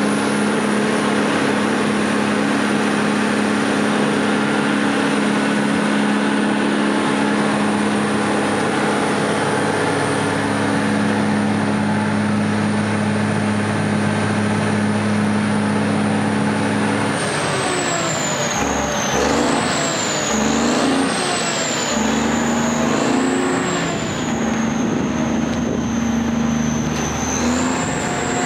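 1986 Champion 740 grader's six-cylinder Cummins diesel engine running, steady at first. About two-thirds of the way in the engine speed rises and falls several times as it is revved, with a high whine that follows the revs.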